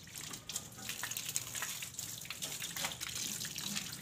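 A stream of water spraying and splashing over a car engine bay, a steady spattering hiss with many small splashes as it hits the engine parts.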